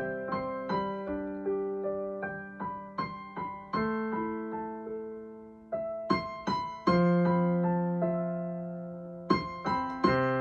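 Solo piano improvisation played slowly and softly: single notes and chords are struck and left to ring out. One chord is held for a few seconds after the middle, then new chords come in near the end.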